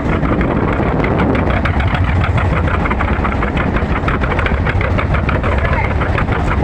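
Boat engine running steadily, with a fast, even run of firing pulses over a low hum.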